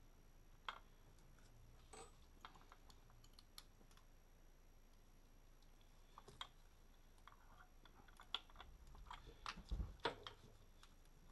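Faint, scattered light clicks and taps of small metal parts, bolts and a socket, being handled and fitted by hand to an engine's coil pack bracket, with a quicker run of clicks and a dull knock near the end.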